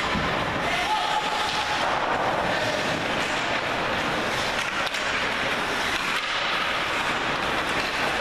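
Ice hockey rink ambience during play: a steady noisy rush with murmured spectator voices and skates scraping the ice.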